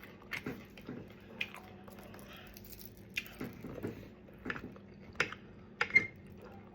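A person chewing food close to the microphone: a string of short, irregular wet mouth clicks and smacks, the loudest about six seconds in.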